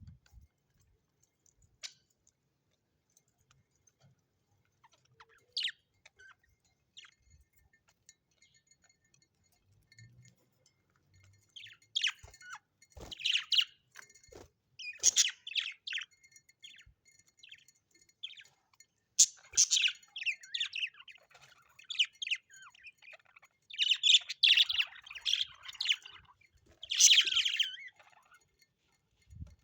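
Small parrots chirping and calling in short, busy bursts, sparse at first and then more frequent from about twelve seconds in.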